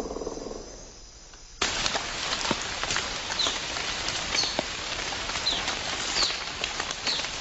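Outdoor nature ambience. A low, rapidly pulsing sound fades out in the first second or so. Then a steady rain-like hiss with scattered ticks cuts in, and over it a bird gives short downward chirps, five times, about once a second.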